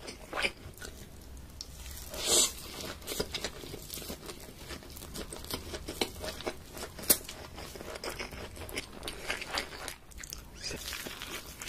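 Close-miked eating sounds of a man chewing and biting food, a run of small clicking mouth noises with louder bites about a third of a second in, two and a half seconds in and seven seconds in.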